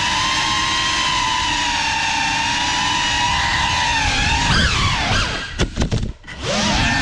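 GEPRC CineLog35 cinewhoop drone's motors whining, the pitch wavering with the throttle. About five and a half seconds in, the whine stutters and nearly cuts out for about a second, then picks up again.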